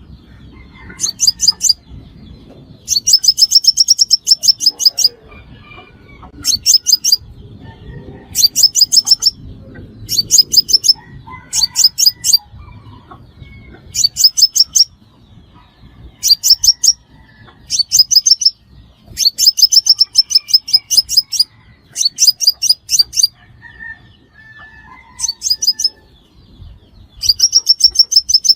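Crimson sunbird calling in bursts of very rapid, sharp, high notes. Each burst lasts from under a second to about two seconds, and the bursts repeat every second or two.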